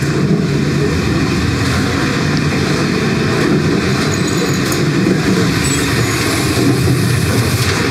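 Passenger sleeper train running: a loud, steady rolling noise of the carriage, heard from inside the corridor near the doors.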